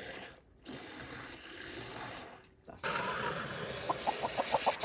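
Water running from a garden hose nozzle into a plastic poultry drinker, with two short breaks and louder after about three seconds. Near the end a hen clucks in a quick, even series.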